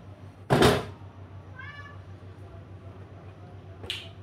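A cat meows once, short and high-pitched, about one and a half seconds in. A loud, brief rush of noise comes just before it, and a short sharp sound near the end, over a steady low hum.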